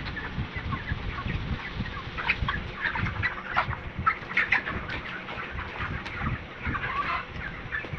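A flock of broiler chickens about four weeks old, many birds giving short overlapping clucks and peeps, over a low rustle of movement.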